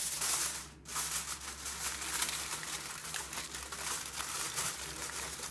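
A sheet of aluminium foil crinkling and crackling as it is handled and spread over a baking dish to cover it, with a brief pause about a second in.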